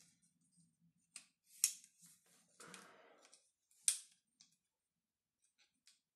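Plastic grommet strip being pressed into the holes of a tennis racket frame: a series of sharp plastic clicks and snaps, the loudest about a second and a half in and again near four seconds, with a short rustle of plastic around three seconds in.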